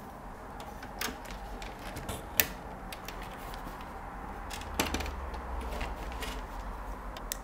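Hands handling an SGI Octane XIO board assembly: scattered small clicks and knocks of its metal and plastic parts, the sharpest about two and a half seconds in, over a low hum.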